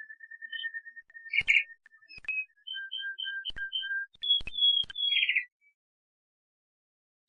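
Domestic canary singing: a rapid trill of even notes, then a run of repeated two-note phrases at about four a second and a short falling series of higher notes, with a few sharp clicks among them. The song stops about five and a half seconds in.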